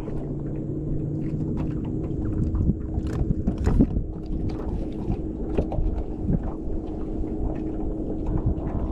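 Fishing boat on the water: a steady low hum, with irregular light knocks and taps scattered throughout.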